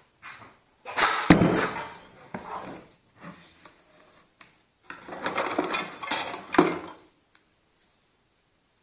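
An old wooden box thumped down on a wooden table and handled, its hinged lid swung open, giving knocks and clatter in two bursts: one starting about a second in with the loudest knock, another about five seconds in.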